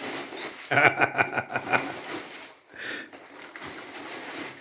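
Loose packing material in the cheese box rustling as it is handled, with a short burst of laughter about a second in.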